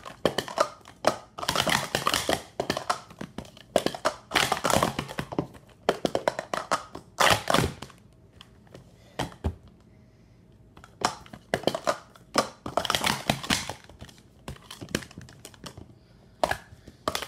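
Speed Stacks SuperStax weighted plastic sport-stacking cups clattering on a stacking mat as they are stacked up and down at speed: rapid runs of clicks and knocks, easing off briefly about halfway through and again near the end.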